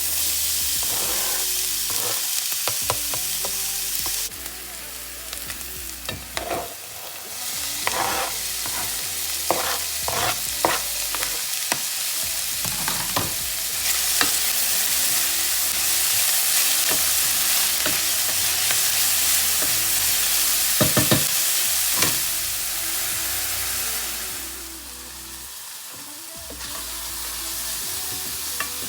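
Food frying in a pan, with a steady sizzle, while a utensil knocks and scrapes against the pan as it is stirred. The sizzle drops in level a few times and then comes back.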